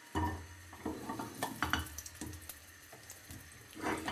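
Whole peeled small red onions being set down one at a time into a frying pan with a thin film of olive oil: a string of irregular soft knocks and clunks against the pan, loudest near the start and again near the end.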